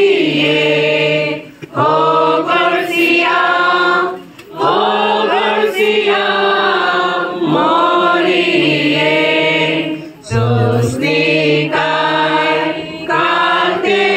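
Voices singing a slow devotional hymn in phrases of a few seconds each, with short breaks between them.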